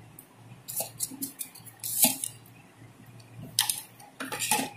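Several light clinks and taps of a metal spoon against a stainless-steel bowl, the loudest coming in a quick cluster near the end, as a spoonful of seasoning is tipped into the mixture.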